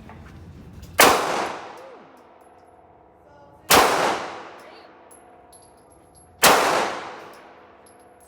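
Three gunshots about two and a half seconds apart, each followed by an echo that dies away over about a second.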